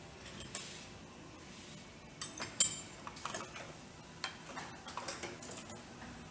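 Metal hand tools and small steel parts clinking against each other as they are moved about on a workbench: a handful of separate clinks, the sharpest and most ringing about two and a half seconds in.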